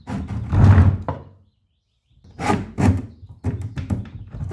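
Hand plane knocking and scraping against the cabinet's wooden surface in repeated short strokes, broken by an edit cut to silence in the middle; its blade is not yet set, so it catches rather than cuts.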